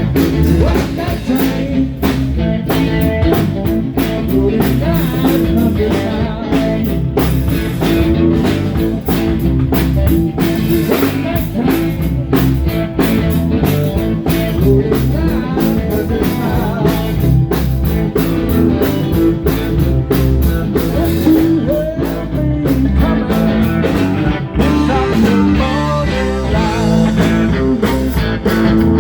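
Live blues-rock band playing, with guitar over a drum kit and bass line.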